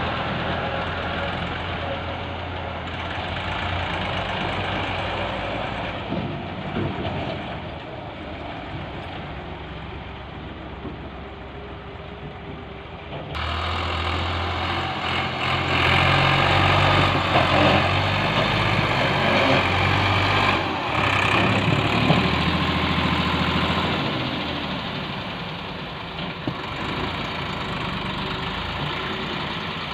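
Massey Ferguson tractor's diesel engine running steadily while its trolley tips out a load of soil. About 13 seconds in the sound cuts abruptly to the tractor running louder as it drives a loaded trolley through loose soil, easing off a few seconds before the end.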